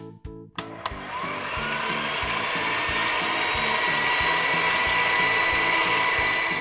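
Whirring, motor-like cartoon sound effect of an animated toy ball launcher, rising in pitch as it builds, over background music with a bouncy bass line. The whir starts about half a second in, after a brief gap with a couple of clicks, and stops just before the end.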